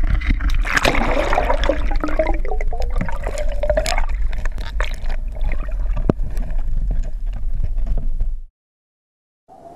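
Creek water heard underwater through a GoPro Hero3's waterproof housing: a steady low rumble with gurgling and scattered sharp clicks and knocks, and a tone that slowly rises in pitch between about one and four seconds in. It cuts off suddenly about a second before the end.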